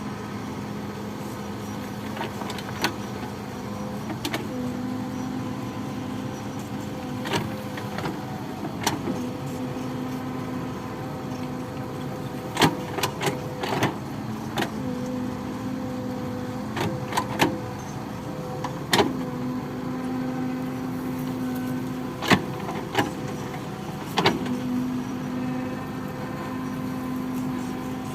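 Hydraulic excavator's diesel engine running steadily, its note stepping up for a few seconds at a time, several times. Sharp knocks and clanks sound at irregular intervals throughout.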